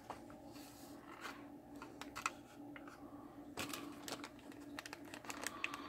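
Faint handling noise: a small plastic zip-lock bag of integrated circuits rustling and clicking as it is picked up and turned in the hand, over a steady low hum.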